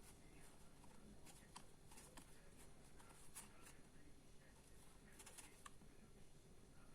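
Near silence: room tone with faint, scattered light clicks and rustles of tarot cards being handled.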